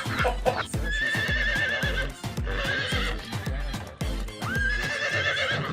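Horse whinnying twice, long wavering cries about a second in and again near the end, over background music with a steady beat that stops shortly before the end.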